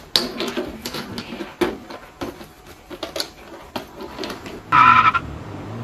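A wheeled backpack rattling and clicking as it is pulled down a step and along a concrete sidewalk: a run of irregular short knocks. About five seconds in there is a short, loud sound with a clear pitch.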